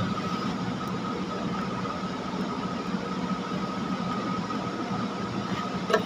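Steady background hiss with a faint, constant high whine running underneath, even and unchanging throughout.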